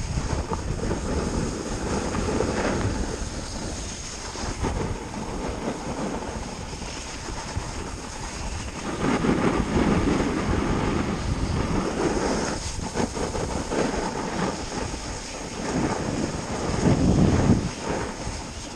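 A snowboard sliding and scraping over groomed, packed snow, with wind rushing over the camera's microphone. The rush swells louder about halfway through and again near the end.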